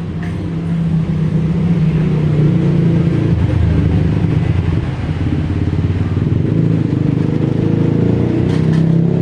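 A heavy engine running close by with a low, steady hum. It grows louder over the first two seconds and then holds.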